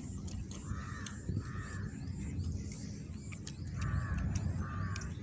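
A crow cawing: two pairs of short caws, the first pair about a second in and the second about three seconds later.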